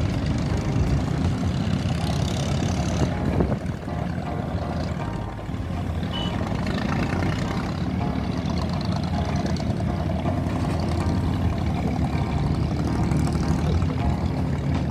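Engine of a wooden abra water taxi running steadily under way, heard from on board as a low, even hum with a haze of water and wind noise over it.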